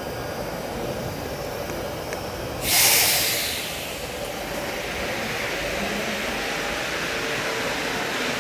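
Rubber-tyred Mexico City Metro train running slowly alongside the platform, a steady rumble. About three seconds in comes a sudden loud hiss of released air that fades away within a second.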